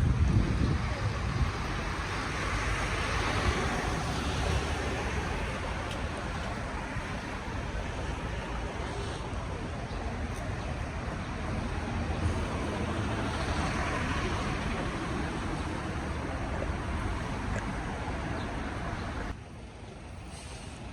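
Road traffic on a city street: steady tyre and engine noise with a low rumble, as two vehicles swell past, one a couple of seconds in and one about two-thirds of the way through. The noise drops suddenly just before the end.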